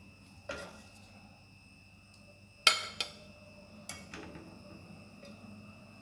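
A metal serving spoon clinking against an aluminium pot and a plate as cooked rice is scooped out. There is a light knock about half a second in, a sharp clink followed at once by another near the middle, and a softer one about a second later.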